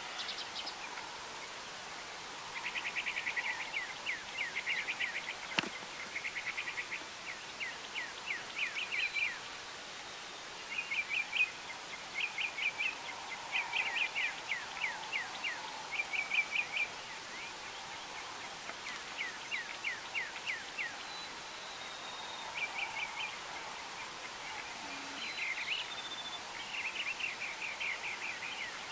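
A songbird singing short, fast trills of repeated chirps, one bout every second or two, over a steady outdoor background. A single sharp click about six seconds in.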